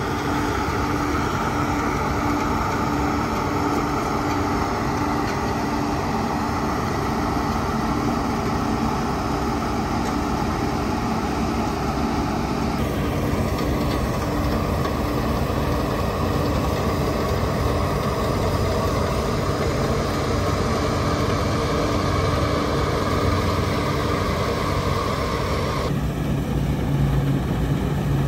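Combine harvesters running steadily at work in the field, engine and threshing machinery together. The sound changes abruptly about halfway through and again near the end, where a deeper hum comes in.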